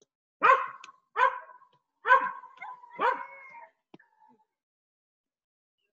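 A dog barking four times, about one bark a second, the last two drawn out a little longer.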